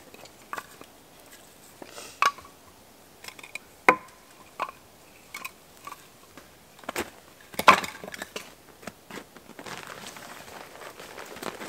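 Scattered sharp knocks and cracks of sticks of firewood being handled and laid for a fire, the loudest cluster about two-thirds of the way through. Near the end, footsteps crunching in crusted snow.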